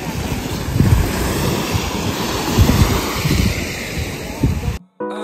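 Small waves washing onto a sandy beach, with wind buffeting the microphone in gusts. The sound cuts off suddenly near the end and music begins.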